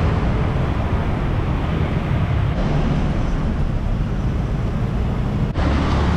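Steady road traffic noise from a busy city street: a continuous low rumble of engines and tyres with a hiss above it.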